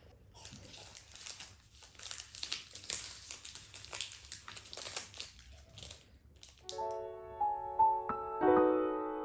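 Foil wrapper crinkling and tearing as a chocolate is unwrapped by hand: irregular crackles for about six seconds. Soft piano music comes in near the end.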